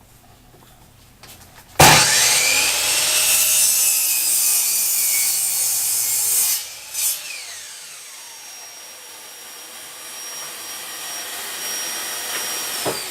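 Electric saw switched on about two seconds in, its motor whining up to speed as it cuts through a wooden board. The cut ends after about five seconds. The motor whine carries on and falls in pitch near the end as the blade spins down.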